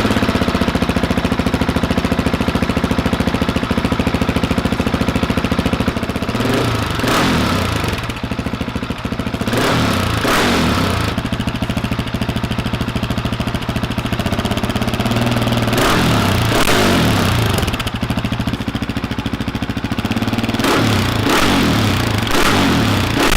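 Husqvarna 701 Supermoto's single-cylinder four-stroke engine idling through an Arrow slip-on exhaust with the baffle fitted, blipped to higher revs and back down several times.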